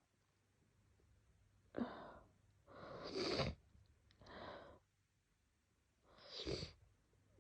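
A woman with a cold coughing and sneezing: four noisy bursts of breath over about five seconds, the coughing setting off sneezes.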